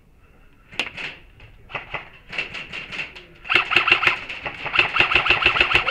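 Airsoft guns firing: a few single shots and short bursts, then from about three and a half seconds in a sustained full-auto burst of about ten shots a second.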